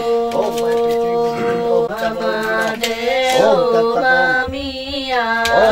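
Voices chanting a Hindu ritual mantra in a sung tone: one long held note with other voices rising and falling over it.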